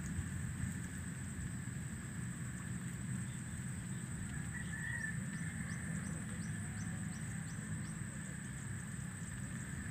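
Rice-field ambience: a steady high-pitched insect drone over a low, even rumble. About five seconds in, a bird gives a short call and then a run of quick chirps, about three a second, for a few seconds.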